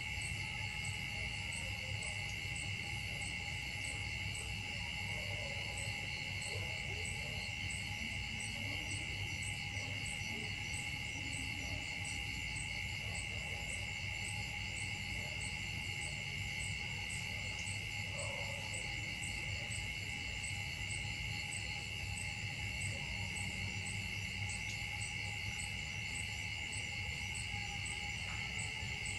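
Steady chorus of insects: several high continuous tones with a fast, even pulsing above them, running without a break. A couple of faint short squeaks come through it, about 7 and 18 seconds in.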